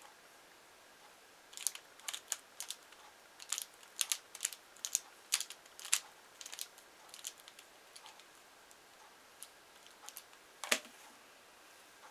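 A Pyraminx puzzle being turned by hand in quick, irregular clicking twists as it is scrambled. Near the end there is a single louder knock.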